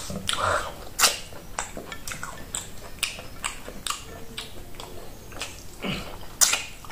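Close-up eating sounds: fingers squishing a ball of oat fufu in peanut butter soup, and wet mouth clicks and smacks. A louder smack comes near the end as she licks her fingers.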